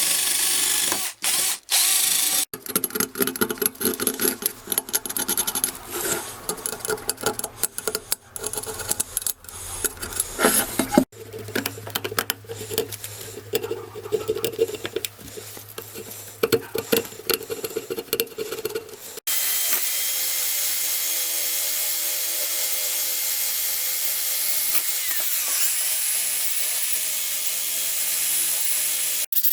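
Power tools at work in several cut-together takes: a tool run in short stop-start bursts, then a machine running steadily with a hiss for the last ten seconds.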